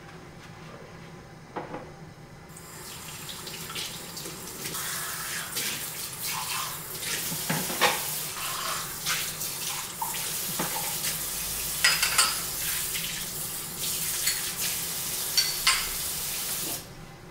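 Kitchen faucet running into a stainless steel sink while drinking glasses are rinsed under it, with a few sharp clinks of glass. The water comes on a couple of seconds in and is shut off near the end.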